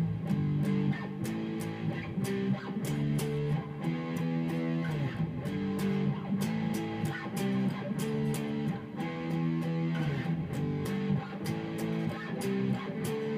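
Electric guitar playing a picked riff of two-note power chords on the A and D strings, starting from the 7th and 9th frets and moving between chord shapes in a steady rhythm.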